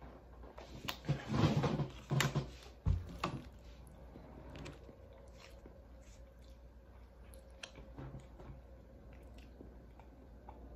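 Drinking from a plastic water bottle, loudest in the first couple of seconds, with a thump about three seconds in. Then faint rustles and clicks as a plastic MRE peanut butter pouch is squeezed, and quiet chewing.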